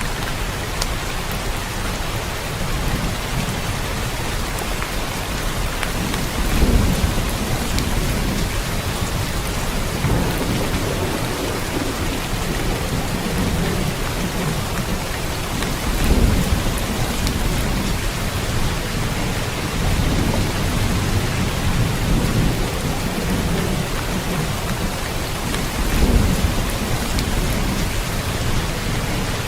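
Steady rain falling, with low rumbles of thunder that swell up several times.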